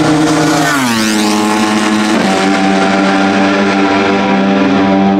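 Racing superbike engine at high revs passing by: its note drops in pitch as it goes past about a second in. It then holds a steady high note.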